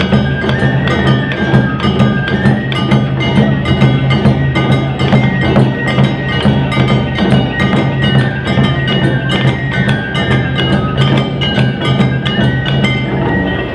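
An Awa Odori festival band (narimono) playing. Rapid, regular clanging of kane hand gongs is laid over drums and other instruments. The music drops away right at the end.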